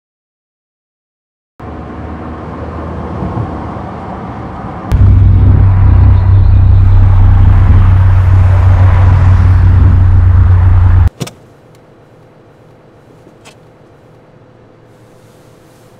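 Car driving noise heard inside the cabin, starting after a moment of silence. About five seconds in, a very loud, deep rumble swells in and holds for about six seconds, then cuts off abruptly, leaving a faint steady hum.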